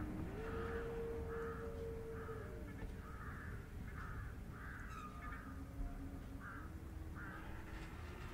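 Background soundtrack: a series of short harsh calls, one or two a second, over a low sustained tone that slides from one pitch to another.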